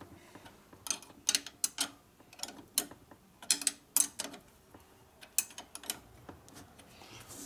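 A wrench working the clamp bolt on the base of a wheel truing stand as it is tightened down: a string of irregular, sharp metal clicks.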